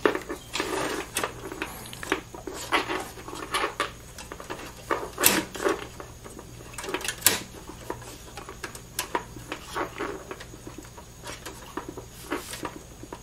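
A 3.5-inch hard drive in its snap-on side rails clicking and knocking against a PC case's drive bay as it is slid in and pushed into place by hand. The clicks are irregular and scattered, the loudest a little after five seconds and about seven seconds in.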